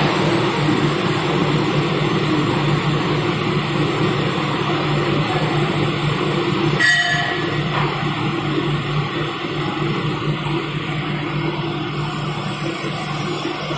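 Industrial de-metalization machine running steadily with a continuous hum, and one short click about seven seconds in.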